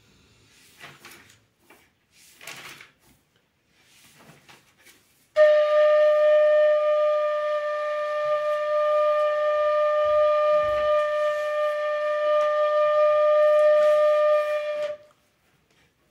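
Bamboo bansuri (Indian transverse flute) playing one long, steady held note for about ten seconds, starting about five seconds in and stopping cleanly near the end: long-note practice on a sargam exercise.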